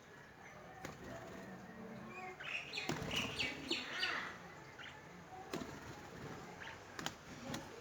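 Small birds chirping, a cluster of quick high chirps about two and a half to four seconds in, with several sharp clicks scattered through.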